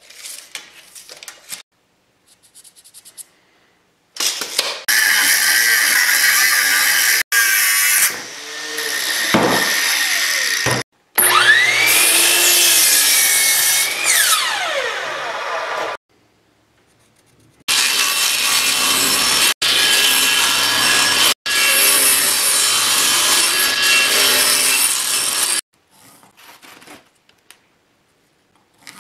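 Power miter saw cutting pine in several edited-together cuts that start and stop abruptly; in one, the saw's motor whine climbs as it spins up, holds through the cut and falls away as the blade winds down.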